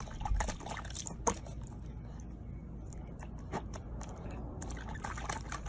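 Water splashing and dripping in a small plastic tub as a corgi puppy stands in it and dips its muzzle: irregular short wet splashes, the sharpest about a second in.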